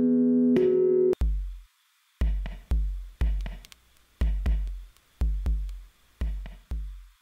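Electronic background music: a held synth chord cuts off about a second in, and a drum-machine beat takes over, with deep kick drums that drop in pitch in an uneven pattern of about two hits a second and faint hi-hat ticks.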